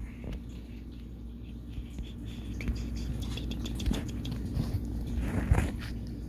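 Domestic cat purring: a soft, steady low rumble, with a few light rustles partway through.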